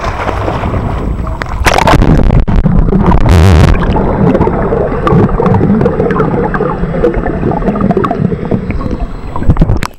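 Swimming pool water heard through a microphone held underwater: a loud, muffled rumbling and gurgling of stirred water and bubbles, with a few sharp splash-like knocks. It falls away as the microphone comes back out of the water near the end.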